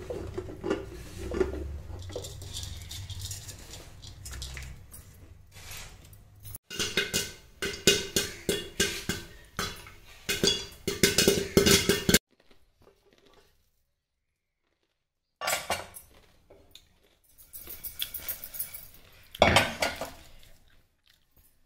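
Popcorn kernels popping inside a covered aluminium pressure cooker: runs of sharp pops and metallic pings against the pot and lid, coming in dense clusters. A loud metal clatter near the end as the lid comes off.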